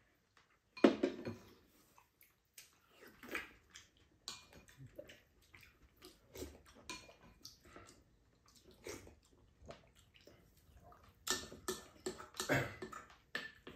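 Eating sounds at a table: slurping soup and food off spoons, chewing, and small clicks of spoons against bowls, in irregular short bursts. The loudest slurp comes about a second in, with a busier run of sounds near the end.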